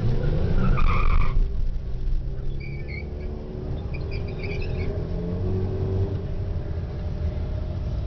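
Supercharged 3.8-litre V6 of a Pontiac Grand Prix GTP at full throttle on a drag-strip run, heard from inside the cabin. Loudest in the first second or so, then its note climbs steadily.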